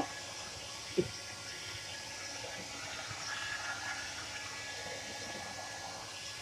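Handheld hair dryer blowing steadily as it dries a dog's wet coat. A brief sharp sound comes about a second in.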